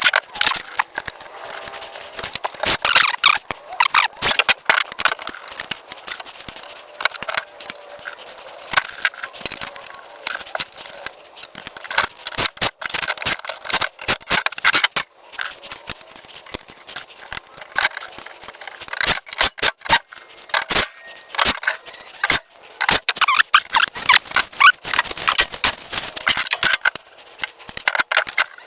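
Sped-up recording of a power cord reel being put together by hand: a rapid run of clicks, clinks and rattles from parts, screws and tools, with almost no low sound.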